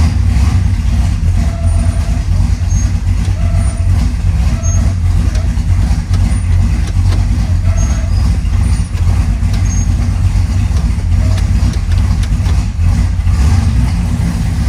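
1967 Chevrolet Chevelle's 427 big-block V8 idling steadily, with faint short squeaks coming and going every second or two.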